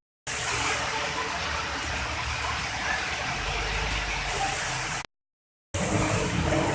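Steady rushing noise of a flooded street in heavy rain, with traffic passing through the water. The sound cuts out completely for about half a second around five seconds in, then carries on.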